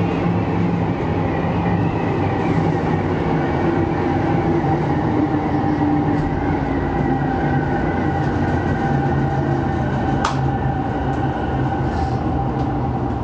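Electric commuter train running slowly through a station, with a steady rumble and the even whine of its motors. There is a single sharp click about ten seconds in.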